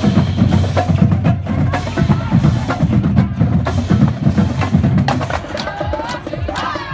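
Marching band drum line playing: rapid, dense drum strokes with sharp stick clicks, continuous and loud.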